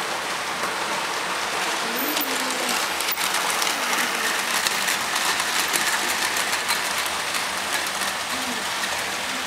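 Model steam locomotive and coaches running on a model railway track: a steady, hiss-like whir and rattle from the small motor and the wheels on the rails.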